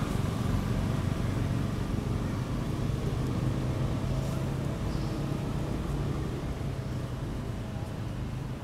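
A steady, low engine hum, easing slightly toward the end.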